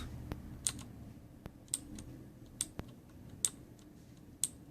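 Cherry MX Blue mechanical keyboard switches on a Razer BlackWidow, pressed one at a time. There are about five key presses roughly a second apart, each giving the switch's sharp, high click with a fainter tick beside it.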